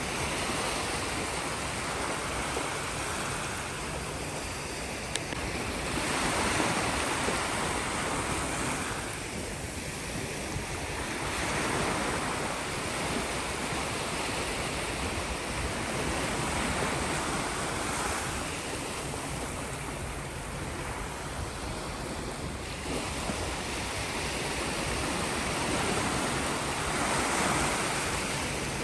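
Sea waves breaking and washing on the shore: a continuous surf rush that swells and eases every several seconds as each wave comes in.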